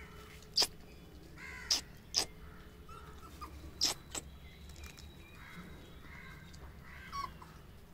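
Short, sharp, high-pitched animal cries: five quick ones in the first four seconds and a fainter one near the end.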